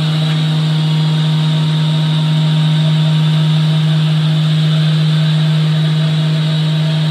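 HC-9700 edge banding machine running, a steady, unchanging machine hum with one strong low drone.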